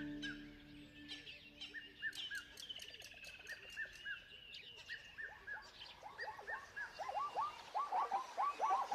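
Birds calling: short, down-slurred whistled notes come in quick runs of three. In the last couple of seconds a busier cluster of lower calls joins in.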